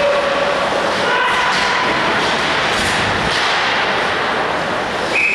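Steady loud noise of an ice hockey game in a rink, with a thud.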